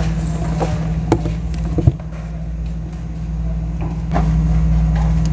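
Steady low mechanical hum that dips just before two seconds in and swells back at about four seconds, with a few light clicks and taps over it.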